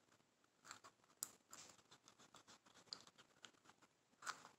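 Faint, irregular scrapes and light taps of epoxy resin, tinted with paint and glitter, being stirred in a small plastic mixing cup.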